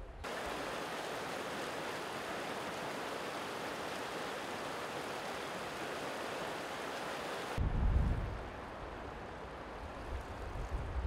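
A snowmelt creek rushing over rocks in a steady, even rush. About seven and a half seconds in it cuts to a quieter trickle of water, with low wind buffeting on the microphone.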